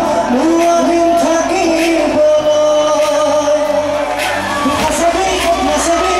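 A man singing live into a handheld microphone through a stage sound system, over band accompaniment with recurring percussion hits.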